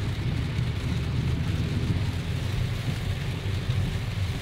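Heavy rain falling on a moving car's roof and windscreen, heard from inside the cabin as a steady hiss over the car's low, even road rumble.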